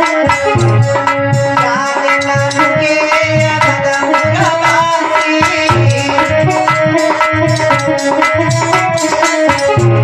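Instrumental Indian folk-devotional music: a steady hand-drum beat under sustained, wavering melodic lines.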